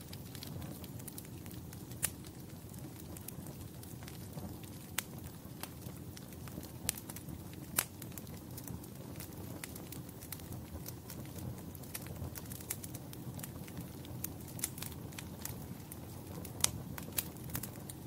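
Log fire crackling in a fireplace: irregular sharp pops and snaps over a steady low rumble of flame, with a few louder pops.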